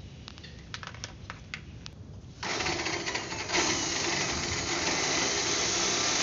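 A few light clicks, then about two and a half seconds in a loud, steady machine noise starts suddenly and keeps running, growing louder a second later.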